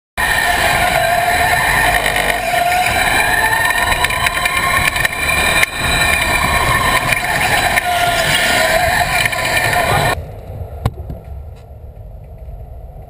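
Go-kart engine heard from on board, its pitch rising and falling over a rumble of the ride. About ten seconds in it cuts off suddenly to a much quieter stretch with a single click.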